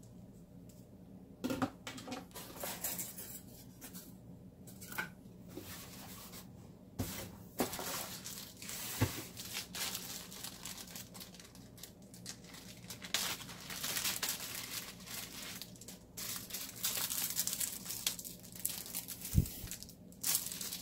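Plastic and paper packaging crinkling and rustling in irregular bursts as accessories are unwrapped, with a few sharp knocks in between.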